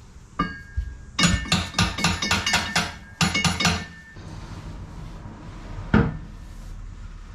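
Metal hand tools clinking rapidly against the drive shaft bolts and underbody, about five or six sharp clinks a second in two runs, then a single louder knock near the end.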